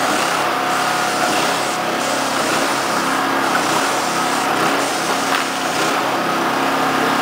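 Airless paint sprayer running steadily: the pump's motor hum under the hiss of coating being sprayed from the gun.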